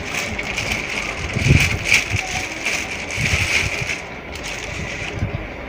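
Rustling and handling noise as a tripod is unwrapped from its packaging, with a few soft thumps.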